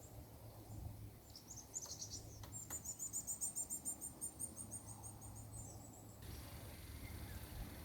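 Downy woodpecker calling: a few high chirps, then a fast, even run of high, sharp notes lasting about three and a half seconds that dips slightly in pitch at the end.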